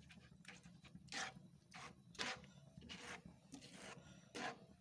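Spatula stirring and scraping a thickening egg mixture in a pan over low heat, as the eggs set. Faint short scrapes come irregularly, about one every half second to a second.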